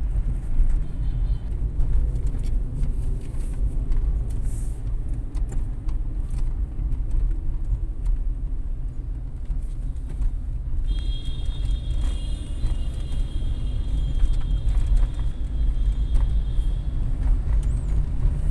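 Steady low rumble of a car's engine and tyres heard from inside the cabin while driving. A faint high whine runs for several seconds past the middle.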